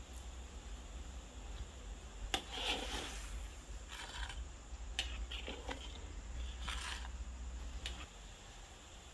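Metal spatula scraping and clinking against a wok while broth is stirred: a handful of short scrapes and knocks between about two and eight seconds in, over a low steady rumble that stops near the end.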